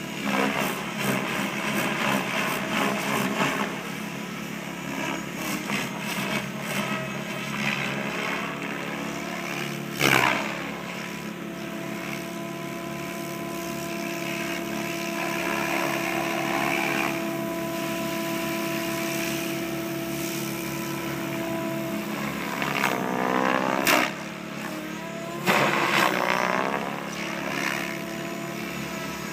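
Electric RC helicopter in flight: a steady rotor and motor whine, with loud swells of blade noise about a third of the way in and twice more near the end, the pitch sweeping up and down as it passes.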